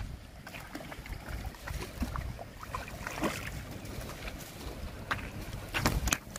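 Splashing and rustling as a hooked rohu is hauled out of shallow water onto the bank. Near the end come a few sharp thumps as the landed fish flops on the bare dirt.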